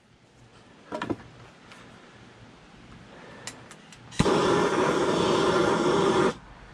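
Hose-fed propane torch lit with a sharp click about four seconds in, its flame burning with a loud, steady rushing hiss against the wood carving for about two seconds before cutting off. A few faint knocks about a second in.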